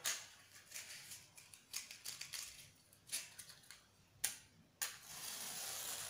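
Matchbox handled and opened, with a run of small clicks and rustles, then a match struck on the box about five seconds in and flaring with a steady hiss.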